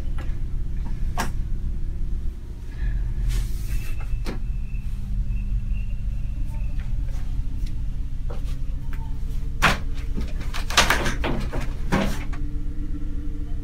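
Sharp knocks and rattles on a door, a few scattered ones and then a quick run of them near the end, over a steady low hum.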